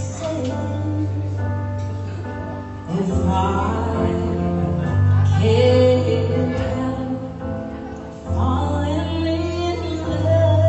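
A guest singer performing a song live over accompaniment, amplified through the event's PA system, with long held notes and no feedback howl.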